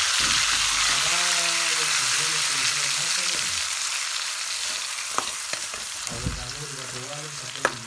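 Food frying in hot oil in a pan, a steady sizzle that slowly dies down, with a few sharp clicks of a utensil against the pan about five seconds in and near the end.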